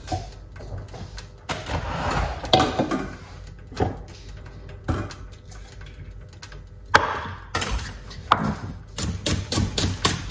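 Scattered knocks and clatter of kitchen work, then, near the end, a kitchen knife starts chopping on a wooden cutting board in a quick, steady rhythm of about four strokes a second.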